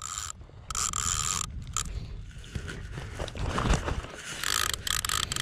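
Fishing reel rasping in two bursts, one about a second in and a longer one near the end, as a hooked dorado (mahi-mahi) pulls on the line. A low rumble of wind and water runs underneath.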